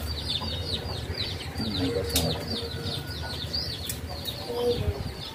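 Small birds chirping in quick, repeated falling notes, with a few low hen clucks and a sharp click about two seconds in.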